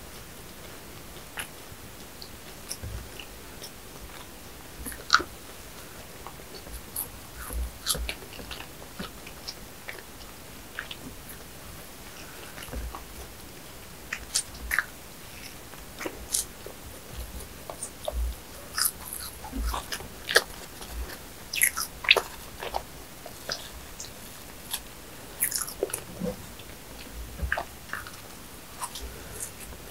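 A person biting and chewing a flaky danish pastry: irregular soft crackles and mouth clicks, busier in the second half, with occasional low thumps.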